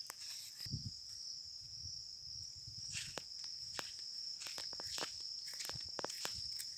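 Insects, crickets by their sound, singing in a steady high-pitched drone, with footsteps and small knocks on the ground as the person filming walks.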